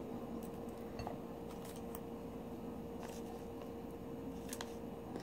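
Faint, scattered small clicks and clinks as loose pearls are handled and set down on a plate, over a steady low background hum.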